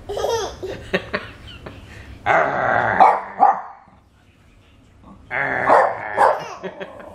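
Jack Russell terrier growling and barking in two short bouts, each a rough growl running into a couple of sharp barks, the first about two seconds in and the second about five seconds in.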